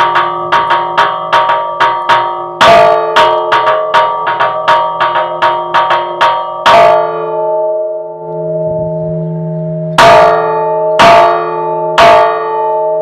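Hand-rung church tower bells: a fast repique of bronze bells, about three to four strokes a second, with heavier strokes of the large cracked bell mixed in and its deep hum ringing on. The strokes pause for about three seconds in the middle, leaving only that hum, then the heavy strokes resume about once a second.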